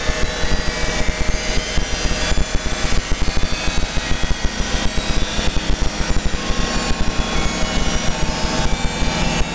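Harsh, noisy computer-generated audio from a malware payload, with a fast, stuttering low throb under a dense hiss.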